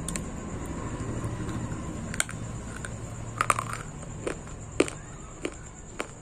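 Multani mitti (Fuller's earth clay) being bitten and chewed close to the microphone: a string of sharp, dry crunches, most tightly bunched a little past halfway, over a steady background hum.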